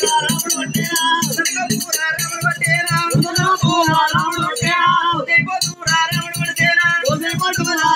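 Telangana oggu katha folk music: singing voices over fast, steady drumming, with jingling percussion.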